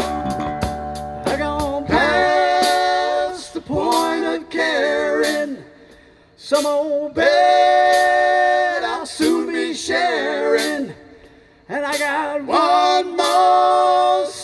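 Live blues-rock band with electric guitar and bass playing, then dropping out about two seconds in. A male lead voice carries on nearly unaccompanied in long held phrases, with two short pauses.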